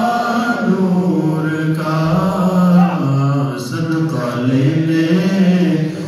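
A man's voice chanting unaccompanied, drawing out long held, ornamented notes in a slow melody.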